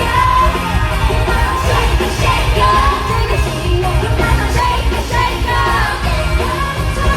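Live pop concert music, loud, with a sung vocal line over heavy bass and yelling from the crowd.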